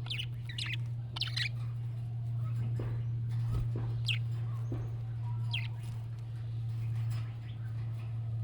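Budgerigar chirping: a quick cluster of short, sharp chirps in the first second or so, then single chirps at about four and five and a half seconds. A steady low hum runs underneath.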